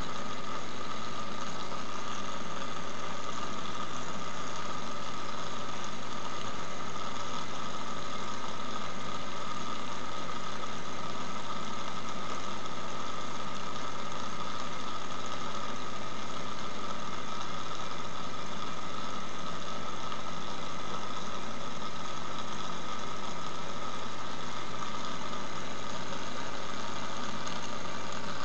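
Aquarium pump running with a steady low hum over a constant hiss of bubbling water, unchanging throughout.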